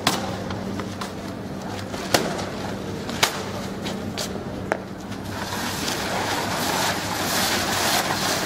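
Cardboard boxes pushed and scraped across stone street paving, making a rising rough hiss in the second half. It follows a few sharp knocks.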